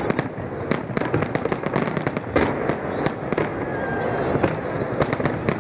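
Aerial firework shells bursting in quick, irregular succession: sharp bangs, a couple a second, over a continuous rumble and crackle.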